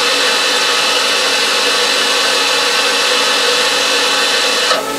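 Live-tool spindles on a DMG Mori Sprint 42/8 CNC Swiss lathe's tool slide running at steady speed, a steady whine of several held tones over a hiss. The sound changes abruptly near the end.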